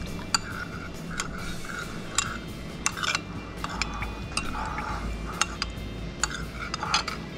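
Metal spoon stirring cornstarch slurry in a ceramic bowl, clinking against the bowl in many light, irregular taps over a low steady hum.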